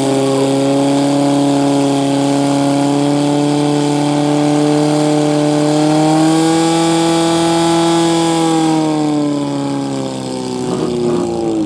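Portable fire pump engine running at high revs while it drives water through the attack hoses, a loud, steady engine note. The pitch rises a little about midway, then drops near the end as the pump is throttled back.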